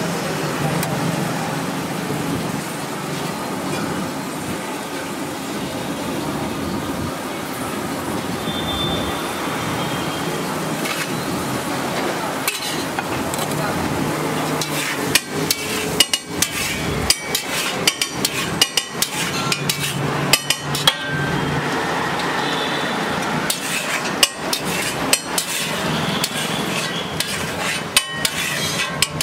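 Long flat metal spatula striking and scraping a large tawa griddle as an egg mixture is chopped up: a quick, uneven run of sharp metallic clanks starting about halfway through. Before that, a steady background of street traffic noise.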